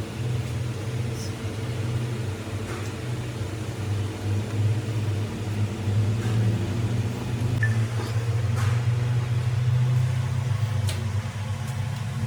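A machine running steadily with a low, even hum, likely an engine, with a few light clicks and taps over it.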